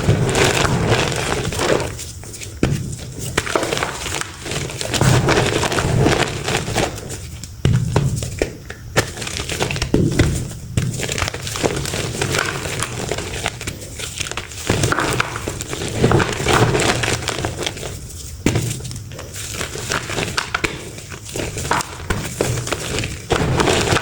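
Reformed chalk blocks crunching and crumbling as they are crushed, in repeated bursts of crackly snapping every few seconds with short pauses between.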